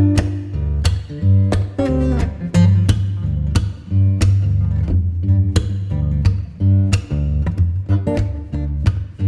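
Background music: guitar with strummed and plucked notes and a steady bass line.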